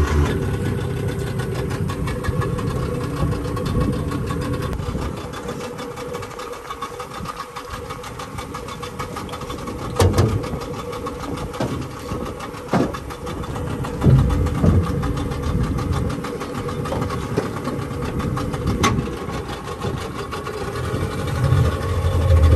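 Yamaha 40 hp outboard motor idling steadily, with a few sharp knocks over the hum. Near the end the engine gets louder as the throttle is opened and the boat gets under way.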